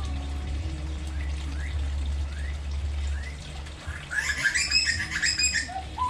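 Australian magpie calling: a few faint short rising chirps, then about four seconds in a loud burst of rich warbling calls lasting over a second, over a steady low hum.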